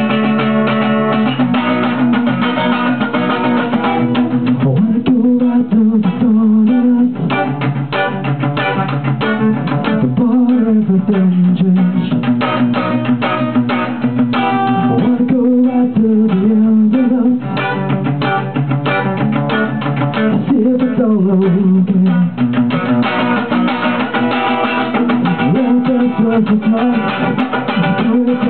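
Sunburst archtop guitar strummed in a steady rhythm. A young man's singing voice joins it about four or five seconds in and carries a melody over the strumming.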